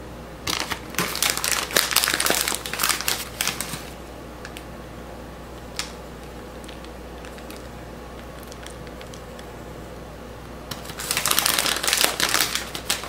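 Plastic bag of shredded cheese crinkling as it is handled, in two bouts of rustling of a few seconds each: one starting about half a second in and one near the end.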